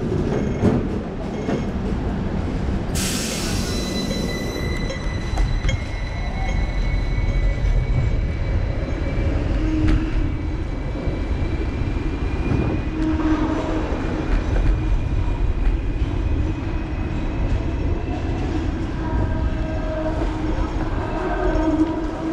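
Hong Kong tram running close by: a thin high squeal that slowly rises in pitch over several seconds, over a steady rumble of street traffic, with a short hiss about three seconds in.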